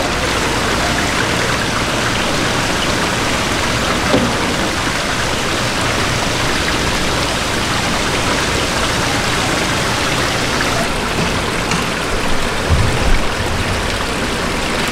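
Steady splashing of water pouring from a pipe into a live-fish tank, with a few soft low knocks near the end.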